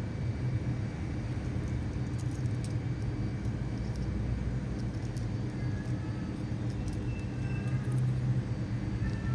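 Steady low motor rumble in the background, like a running engine or passing traffic, with a few faint light clicks as the lure's metal treble hooks and split rings are handled.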